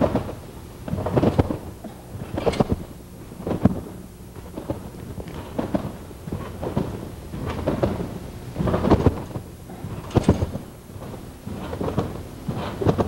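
A trampoline bed taking a gymnast's repeated landings as she bounces, a deep thump about once a second, some landings doubled.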